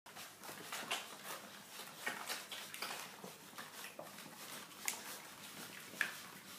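Irish wolfhound puppies feeding: a busy run of small clicks and knocks, with a few short high squeaks about five and six seconds in.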